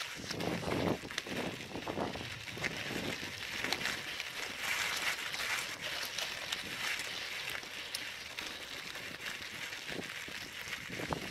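Bicycle tyres rolling over a loose gravel track: a steady crunching hiss, with low knocks from bumps in the first couple of seconds and again near the end.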